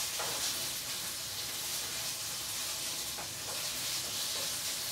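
Strips of beef steak searing in hot oil in a frying pan on high heat, sizzling steadily as they are stirred with a spatula.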